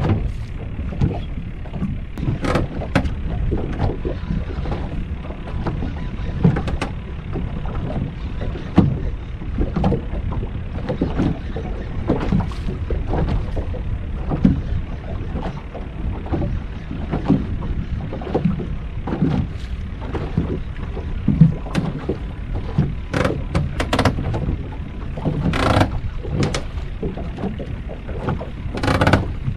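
Small waves lapping and slapping against the hull of a small fiberglass skiff drifting on choppy water, over a steady low rumble, with scattered knocks and a few sharper slaps.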